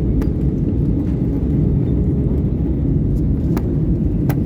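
Steady low rumble of a jet airliner cabin in flight: engine and airflow noise heard from a window seat, with a few faint clicks.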